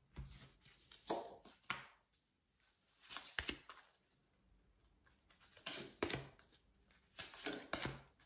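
A deck of oracle cards being shuffled and handled by hand, in about five short bursts of crackling card noise with quiet pauses between.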